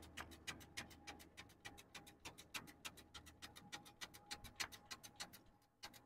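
Volvo D13 fuel priming pump ticking fast and evenly, about seven faint ticks a second, as the fuel system is primed after a fuel pump replacement.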